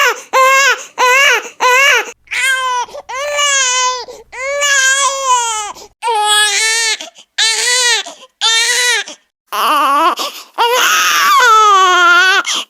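A baby crying: a run of short, quick wails, then longer wails of about a second each, and one long, louder wail near the end.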